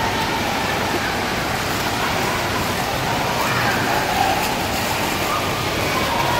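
Steady rushing din of an indoor wave pool: churning water with faint voices in the hall.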